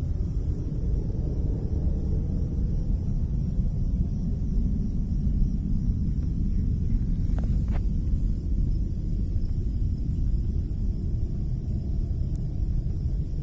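Steady low rumbling outdoor noise with two faint clicks about halfway through.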